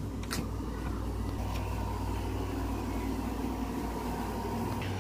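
A doorknob and latch clicking twice as a door is opened, followed by a steady low hum from a machine running in the room.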